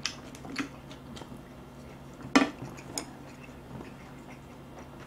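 Chopsticks and a spoon clicking against a bowl while eating: a handful of separate sharp clicks, the loudest about two and a half seconds in.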